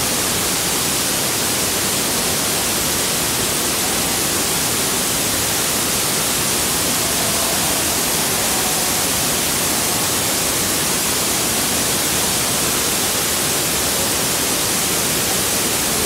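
Tall waterfall pouring close by: a steady, loud, hissing rush of falling water and spray.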